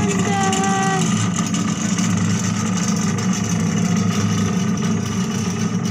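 Chairlift sky ride running: a steady low mechanical drone from the cable and chair vibration, with a brief whining tone in the first second. The riders don't like the sound and take it for vibration coming from the lift.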